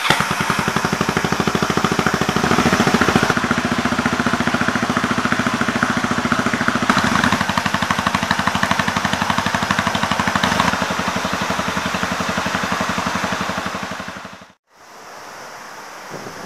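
Kawasaki 250TR's air-cooled single-cylinder four-stroke engine, just fired up on the electric starter, idling with a rapid, even run of exhaust pulses and rising slightly a few times. It cuts off abruptly about fourteen and a half seconds in.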